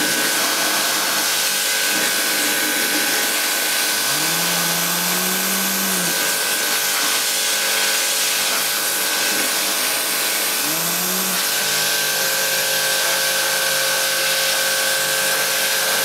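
Pressure washer spraying water onto a rangehood's fan panel to rinse off degreaser: a loud, steady spray hiss with a thin steady whine over it. A lower hum rises in pitch twice, about four and eleven seconds in.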